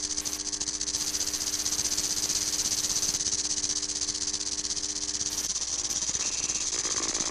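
Loud steady hiss, like static, with a low hum and a few held low tones beneath it; the tones stop about three-quarters of the way through while the hiss goes on.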